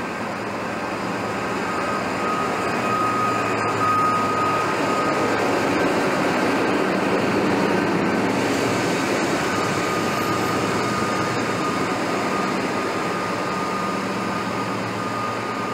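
ÖBB locomotives running through a railway station: a steady low engine hum under general rail noise, with a thin high whine coming in at about ten seconds as an electric locomotive draws in.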